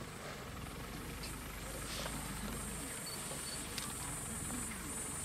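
Vehicle engine idling with a steady low hum, with a high insect buzz that sets in about half a second in and a few faint clicks.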